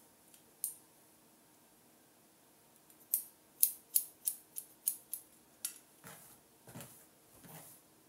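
Hairdressing scissors snipping through a lifted section of hair: a single snip under a second in, then a quick run of about nine snips, roughly three a second, from about three seconds in. Softer rustling follows near the end.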